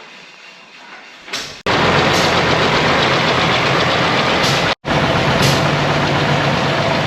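An old Chevrolet car engine idling steadily, purring along; it comes in abruptly about one and a half seconds in and has a split-second break near the middle.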